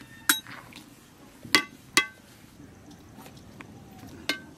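Metal ladle knocking against the side of a metal wok while stirring: four short, ringing clinks, the two loudest close together in the middle.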